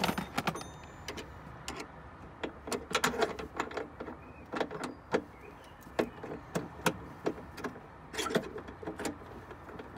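Screwdriver turning a rear wiper motor mounting screw loose on a car tailgate: irregular small metallic clicks and scrapes, a few close together and then spaced out.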